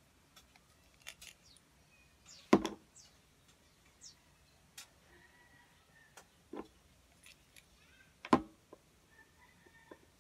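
Makeup things being handled: a concealer bottle and brush give scattered soft clicks and taps, with two louder thumps about two and a half seconds in and about eight seconds in.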